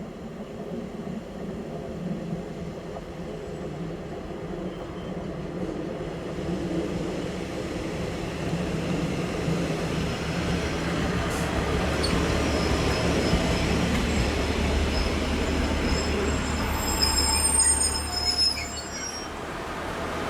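Class 143 Pacer diesel railbus approaching and running past, its low engine and wheel rumble growing steadily louder. High-pitched wheel squeal sounds near the end, just before the noise drops away.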